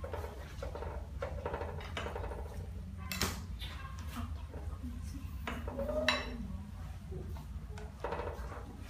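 A metal ladle clinking and scraping against an aluminium soup pot and a ceramic bowl as soup is ladled out, with a few sharp clinks about three seconds in and again around six seconds, over a steady low hum.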